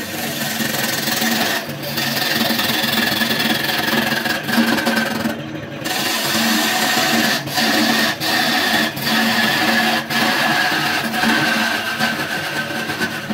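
Wood lathe spinning a large cylindrical wooden blank while a turning chisel cuts it: a steady scraping, hissing cut over the hum of the lathe motor. The cut breaks off briefly several times as the tool lifts from the wood.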